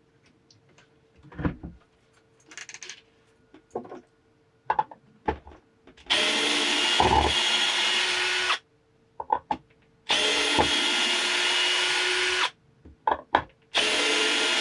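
Cordless drill-driver running in reverse in screwdriver mode, first gear, backing woodscrews out of a piece of timber. It runs in three steady bursts of about two and a half seconds each, with handling clicks and knocks before and between them.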